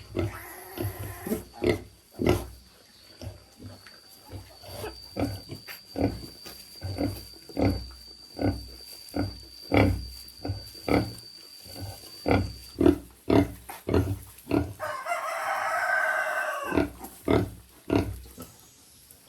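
Pig grunting in a steady rhythm, about two short grunts a second, with a higher-pitched squeal lasting about two seconds near the end.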